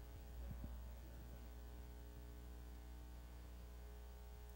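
Faint steady electrical hum with evenly spaced overtones, over quiet room tone.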